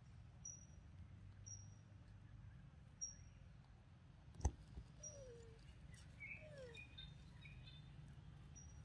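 Faint bird chirps: short, high single notes repeated about once a second, with a few lower sliding calls and chirps in the second half. A single sharp click about halfway through is the loudest sound.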